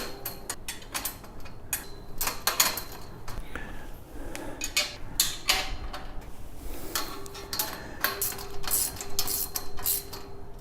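Wrench tightening the nuts and bolts on a compost tumbler's frame: a run of irregular metallic clicks and clinks.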